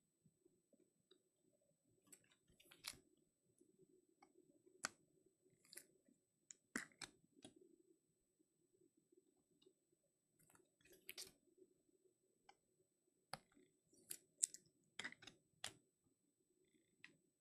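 Faint, irregular clicks and light plastic rustles of trading cards being handled and slid into rigid plastic toploaders.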